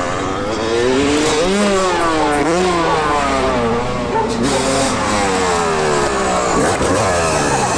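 Dirt bike engines revving, their pitch rising and falling over and over as the throttle is opened and closed.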